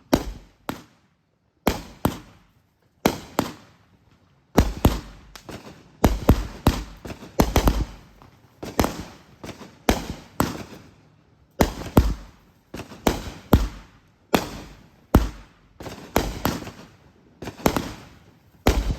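A consumer fireworks cake, the last box set off as a finale, firing a long series of sharp bangs, about one to two a second, each fading out quickly.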